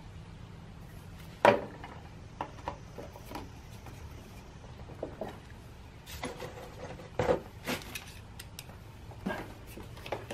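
Small metal screws and a screwdriver being handled, giving scattered clinks and taps, with a louder knock about a second and a half in and another about seven seconds in.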